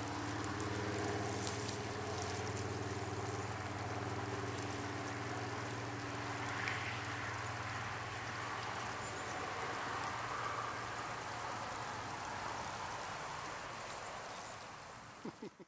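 Boat motor running steadily with water rushing, fading out near the end.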